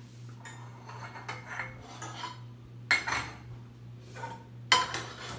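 Metal pots and pans clattering on a gas stovetop as they are moved and set down, with scattered clinks and two louder clanks, one about three seconds in and one near the end. A steady low hum runs underneath.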